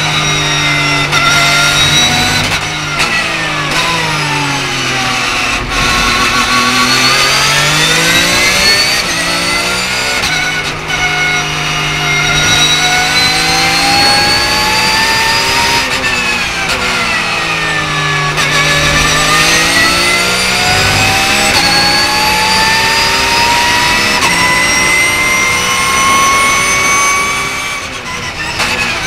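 Porsche 911 GT3 Cup (991.2) race car's 4.0-litre flat-six heard from inside the cockpit under racing load. The pitch climbs steadily through the gears with a short drop at each upshift, then falls in long descents as the car brakes and downshifts for corners, several times over.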